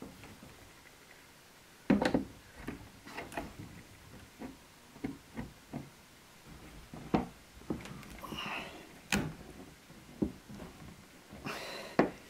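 Irregular wooden knocks and thuds that begin about two seconds in: a wooden wardrobe being banged and worked at to free a person shut inside after its lid slammed closed.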